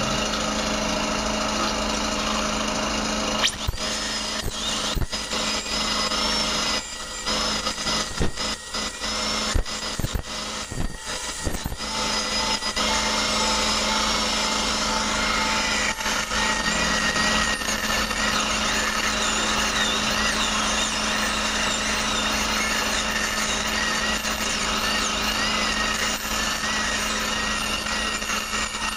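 Dental drill (surgical handpiece with a bur) whining as it cuts around an impacted wisdom tooth, its pitch wavering as it bears on the tooth and bone. It stops and starts with clicks in the first part, then runs on continuously over a steady suction hum.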